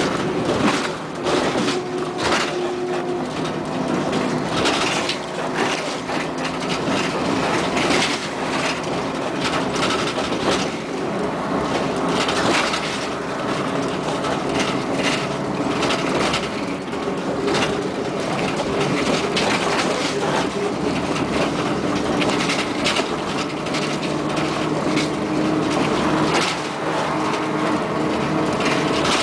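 Cabin sound of a Scania CN113ALB articulated city bus under way: the diesel engine drones, its pitch shifting up and down, over road noise, with frequent rattles and knocks from the bus body.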